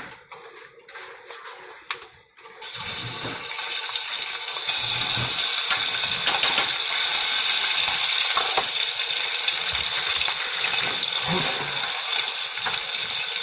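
A few light knocks, then a kitchen tap turned on about two and a half seconds in, running water into the sink steadily with a loud hiss.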